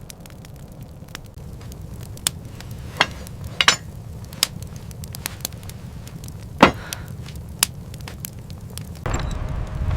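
Irregular sharp cracks and knocks, a few seconds apart, over a steady low rumble; near the end a louder rushing noise with a steady tone comes in.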